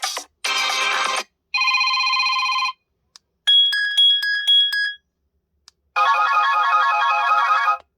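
HTC U23 Pro ringtones previewed one after another: four short electronic tunes, each cut off after a second or two, with silent gaps between. The third is a quick repeating two-note beep.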